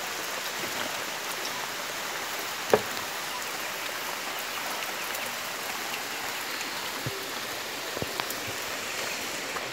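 Steady rain falling, an even hiss throughout, with a few sharp taps, the loudest about three seconds in.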